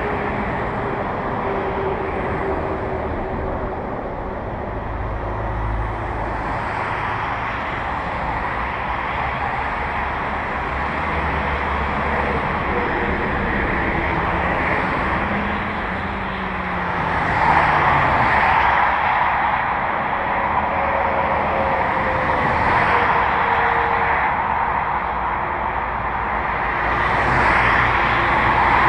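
Road vehicles driving: a steady rush of road and traffic noise with an engine tone whose pitch rises and falls now and then. It gets louder about two-thirds of the way through.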